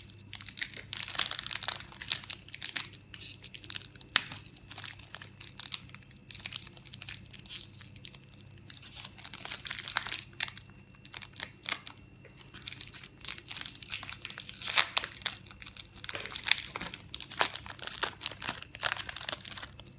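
Foil booster pack wrapper of trading cards crinkling and tearing as it is opened by hand, in irregular bursts of crackling.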